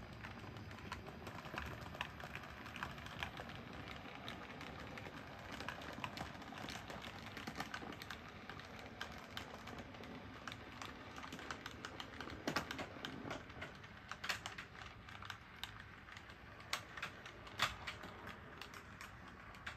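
H0 scale model train running on the layout: many small, irregular clicks of its wheels over rail joints and points, faint, with a few sharper clicks in the second half.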